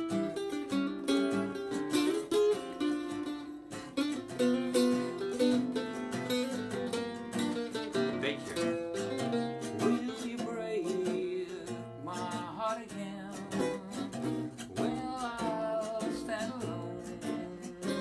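Two acoustic guitars playing together, an instrumental passage of a slow, jazzy song: plucked chords with a melody line moving over them.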